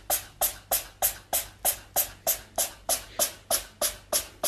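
A cat chattering: a steady run of short, clipped clicking calls, about three a second.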